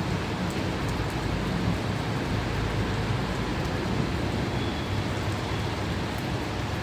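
Steady rain: an even, unbroken hiss with a low rumble underneath.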